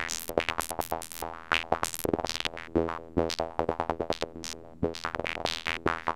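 Serum synthesizer playing a fast psytrance sequence: rapid repeated notes whose brightness changes from note to note as the modulated bandpass filter opens and closes.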